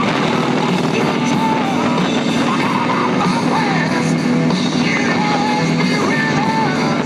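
Rock song with a singing voice over a loud, steady band.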